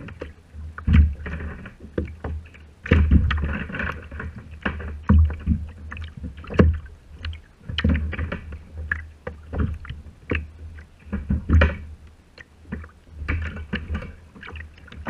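Ocean chop slapping and splashing against a plastic kayak hull, in irregular knocks every second or two, picked up by a camera mounted on the bow.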